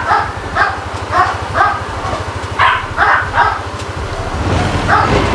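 A dog barking repeatedly, around eight barks in irregular groups, over the low even pulsing of a Yamaha Aerox 155 scooter's single-cylinder engine idling just after its push-button start.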